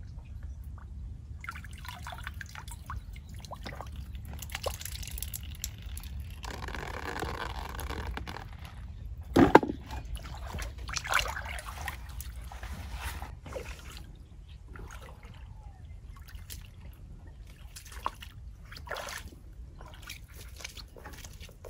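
Shallow muddy pond water splashing, trickling and dripping as hands work in it, busiest a little before halfway, with one louder knock about halfway through and scattered small knocks and rustles after.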